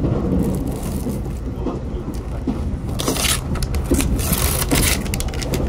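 Diesel train running with a steady low engine drone and rumble, and two short bursts of hissing noise, about three seconds in and again about four and a half seconds in.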